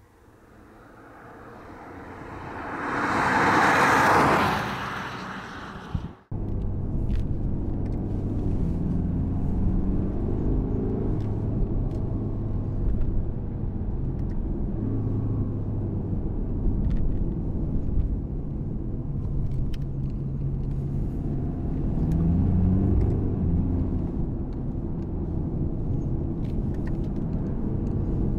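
A BMW 420d coupe's four-cylinder diesel, first heard from outside as the car approaches and passes, swelling to a peak about four seconds in and fading. From about six seconds in it is heard inside the cabin: a steady engine drone under road noise, its pitch rising and falling with the throttle, climbing again a little after twenty seconds.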